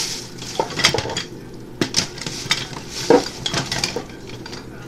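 Metal cutlery and kitchen utensils clinking and clattering in irregular sharp knocks as they are rummaged through in search of a particular utensil.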